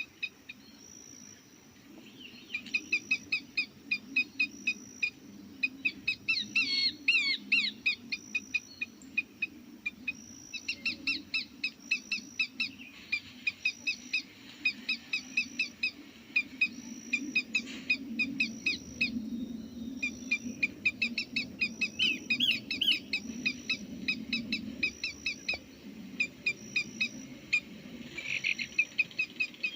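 Small birds chirping in rapid runs of short, high notes that keep repeating, over a low steady rumble.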